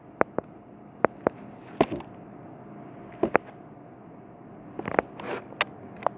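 About ten sharp clicks and taps at irregular intervals over a steady hiss with a faint hum.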